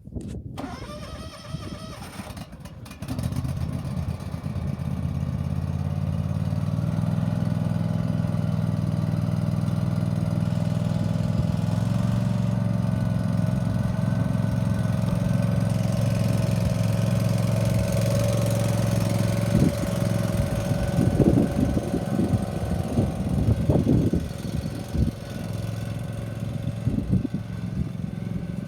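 John Deere Z445 zero-turn mower engine starting up; it catches about three seconds in and then runs steadily. Irregular low thumps cut in over the engine about two-thirds of the way through.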